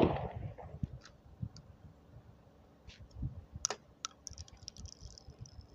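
A 20-gauge over-and-under shotgun fires once, a sharp bang at the very start that fades over about half a second, followed by scattered light metallic clicks of the gun being handled, and a brief hiss in the second half.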